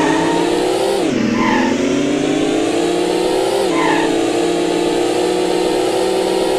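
Cartoon car engine sound effect from a children's letter-tracing game, revving steadily. Its pitch drops and climbs again twice, about a second in and near four seconds in, like gear changes, with a short chirp after each drop.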